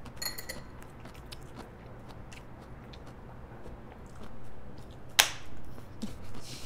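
Chewing and small clicks of dishes and cutlery, with a brief ringing clink just after the start. About five seconds in comes one sharp slap of palms, a high-five.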